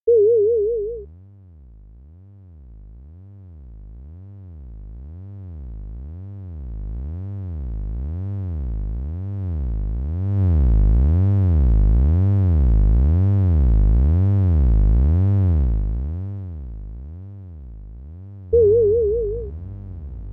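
Synthesized electronic sound effects. A short warbling beep sounds first. A low tone follows that sweeps up and down in pitch about twice a second, growing louder and then fading. The warbling beep comes again near the end.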